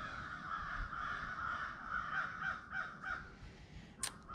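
A large flock of crows cawing, many calls overlapping into a continuous chorus.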